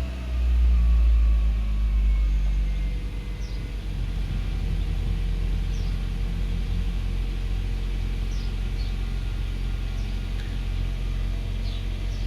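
Hyundai i30's 2.0-litre engine idling just after a start, louder for the first couple of seconds and then settling to a steady idle.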